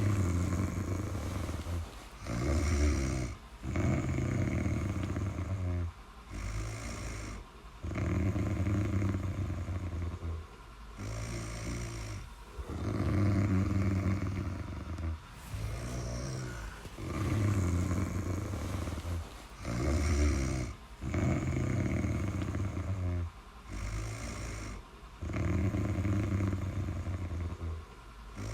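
Snoring in a steady rhythm: a longer low snore alternates with a shorter one, one full cycle about every four and a half seconds, about six cycles in all.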